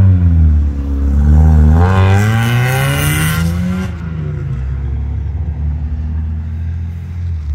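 Mazda Miata's four-cylinder engine pulling away and accelerating, its pitch climbing steadily, until it cuts off abruptly about four seconds in and a steady low rumble takes over.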